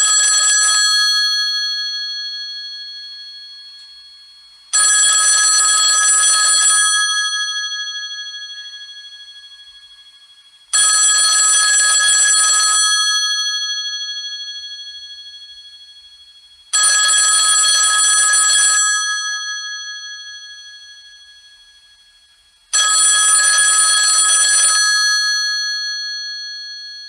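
Cell phone ringtone: a high, trilling ring of about two seconds that repeats every six seconds, five times, each ring fading out slowly before the next.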